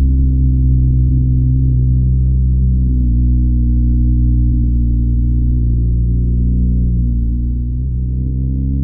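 BMW R1250GS with its stock exhaust, the 1254 cc boxer twin running steadily under way. Its pitch dips briefly near the end, then climbs as the bike accelerates.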